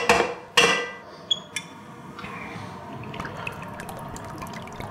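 Two knife strokes on a wooden cutting board in the first second. Then olive oil is poured from a bottle into an electric skillet holding pats of butter, with faint scattered crackles as the pan heats.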